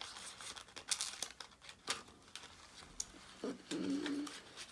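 Scissors snipping and paper being handled, a scatter of short sharp clicks and rustles. About three and a half seconds in, a brief low cooing sound lasts about a second.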